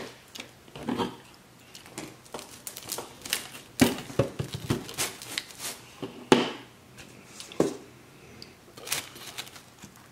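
A rolling pizza cutter cuts through a crisp pizza crust on its cardboard round, making a run of crackles, scrapes and sharp clicks, the loudest about four and six seconds in. Near the end a slice is pulled apart.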